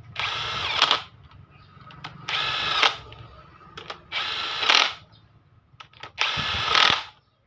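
Cordless impact wrench driving the cylinder-head bolts of a Yamaha Vixion engine during reassembly, in four short runs about two seconds apart. Each run ends louder as the bolt seats and the tool hammers.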